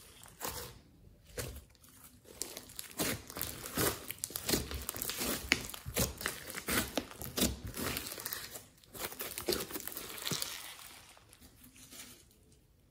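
Glossy slime with clay and glitter mixed in, being stretched, folded and pressed by hand, giving irregular crackles and pops. It goes quieter near the end.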